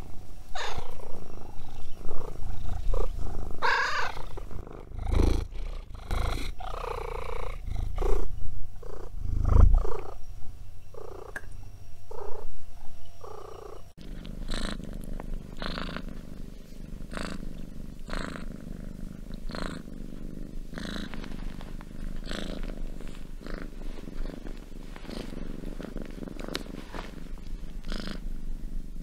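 Tabby cats purring: uneven and louder in the first half, then, about halfway through, a steadier purr that swells with each breath about once a second.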